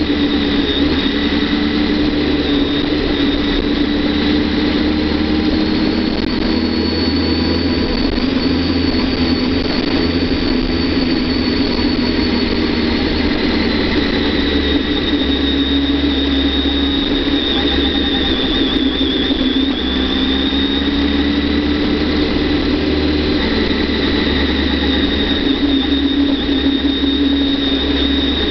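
Kawasaki ZX-10R's inline-four engine running at fairly steady revs while riding, pitch drifting slowly up and down, with a high whine above it and steady wind and road noise.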